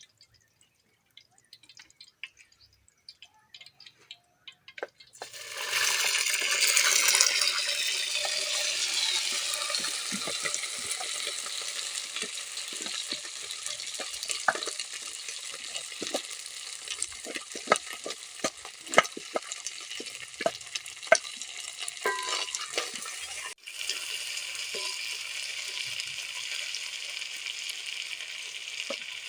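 Food going into hot oil in a pan starts sizzling suddenly about five seconds in and keeps frying, with frequent sharp taps of a spoon stirring against the pan. Before that, only faint scattered ticks.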